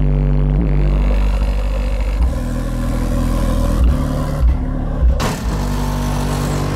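Music with heavy bass played loud through a Digital Designs DD1508 8-inch car subwoofer, with deep held bass notes that change every second or so.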